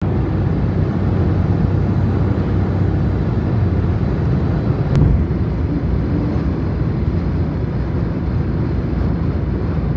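Steady road and engine rumble heard from inside a moving car's cabin at highway speed, with a single sharp thump about five seconds in.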